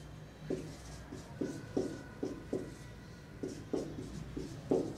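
Marker pen writing on a whiteboard: a quick run of short separate strokes, about two a second, as a word is written out.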